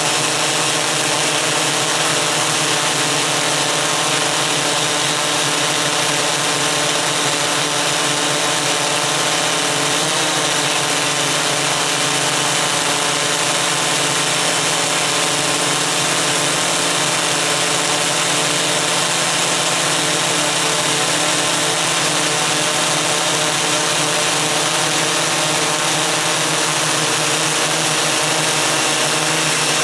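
Steady hum of a Mikrokopter Koax-Quadro X8 multicopter's eight electric motors and propellers, heard from on board, with many held tones over an even hiss.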